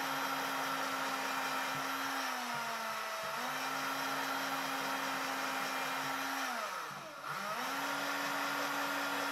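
Small electric drill with a thin bit running steadily while boring thread holes through a wooden button. Its motor whine slows about two seconds in and picks back up, then about seven seconds in drops almost to a stop before speeding up again.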